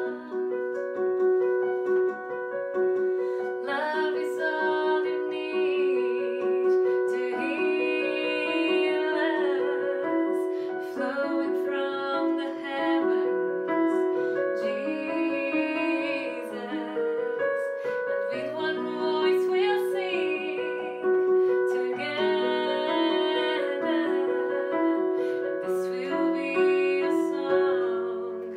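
A woman singing a worship song solo, her sung phrases wavering with vibrato, accompanied by held chords on a digital piano.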